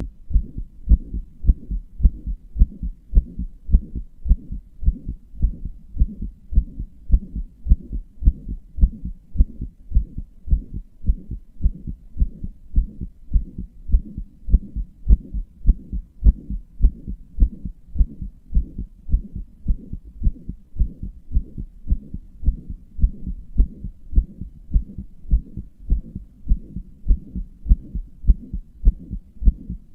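A human heartbeat heard close up, a steady rhythm of low thumps at about one beat a second. It has the whooshing of a heart murmur, which the owner says their heart has.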